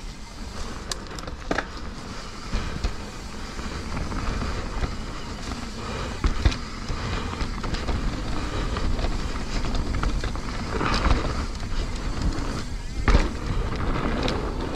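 Mountain bike riding fast down a dirt trail: a steady rough rumble of tyres on dirt with the bike rattling, broken by three sharp knocks over bumps, the loudest near the end.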